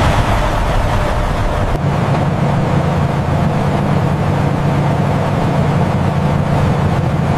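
Loaded logging truck driving at highway speed: a steady engine drone with road and wind noise. The deep rumble drops away about two seconds in, leaving a steadier low hum.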